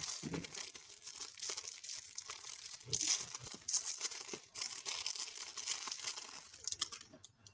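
Clear plastic bag crinkling and rustling in the hands as it is worked open, with many small crackles, stopping about seven seconds in.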